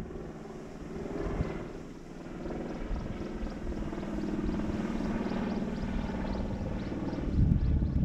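A motor drones steadily with a rapid pulse, growing louder over several seconds. Wind gusts buffet the microphone at the start and again near the end.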